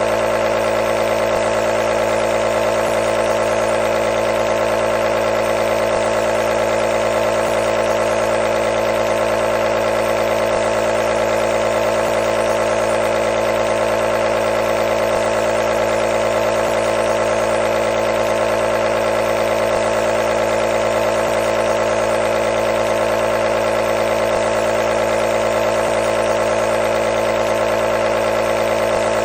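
Nebulizer compressor motor running continuously: a steady, unchanging mechanical hum.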